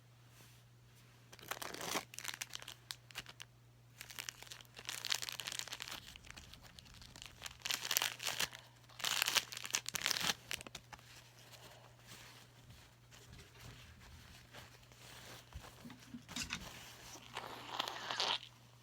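A person blowing their nose into a tissue, a series of noisy blows a second or two long each, with tissue crinkling between them.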